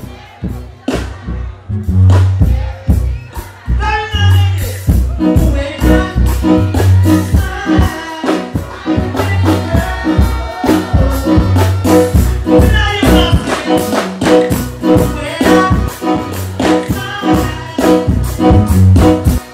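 Live stage performance over a PA system: a backing track with a heavy, steady bass beat and a singer's voice on the microphone over it. The music is softer at first and comes in at full level about two seconds in.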